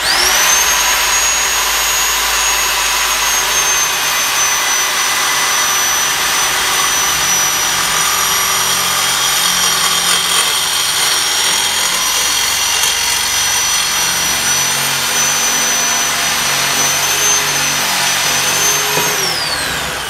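Corded reciprocating saw with a new metal-cutting blade sawing through a thick polished steel closet rod clamped in a vise. The motor's high whine comes up to speed at the start and holds steady over the blade's rasp, then winds down near the end as the cut is finished.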